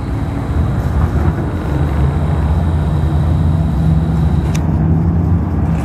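A motor vehicle engine running with a steady low rumble that grows louder about a second and a half in.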